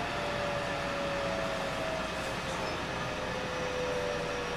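Interior running noise of a JR West 207 series 1000 electric train (renewed car) under way. Steady wheel and rail noise is joined by a thin whine that slowly drops in pitch.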